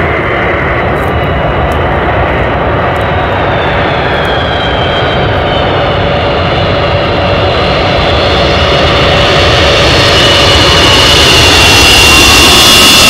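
Jet engines of an Antonov An-225 Mriya, its six Ivchenko-Progress D-18T turbofans, running: a dense rushing noise with a high whine that slides slightly lower, growing louder through the second half.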